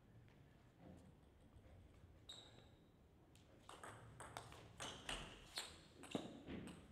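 Table tennis rally: the ball ticks sharply off the bats and the table about three times a second, starting about halfway in and stopping just before the end.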